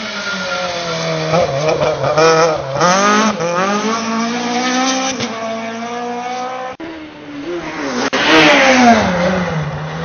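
Rally car engines revving hard and passing at speed, the pitch climbing and dropping sharply through quick gear changes. About 8 seconds in, another car goes past sliding, with a burst of tyre and loose-gravel noise and a falling engine note.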